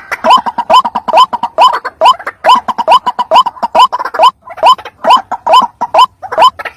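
White-breasted waterhen (ruak-ruak) calling: a fast series of short, upward-hooking croaking notes repeated about two to three times a second, with a brief break about four seconds in.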